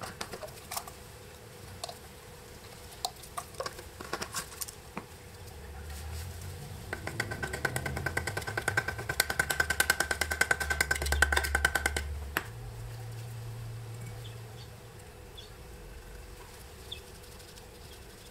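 Utility knife blade scraping the old paint on a telephone housing, a rapid run of rasping strokes from about seven seconds in that stops suddenly near twelve seconds; this exposes a spot for a lead paint test. Light clicks and handling knocks come before it.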